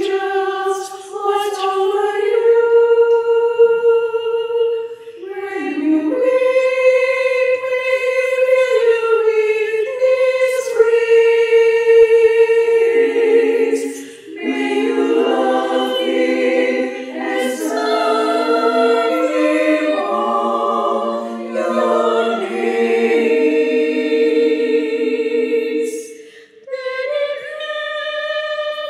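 Women's choir singing a slow hymn in long held phrases, with short breaths between them. It is a single melody line at first and opens into several-part harmony about halfway through.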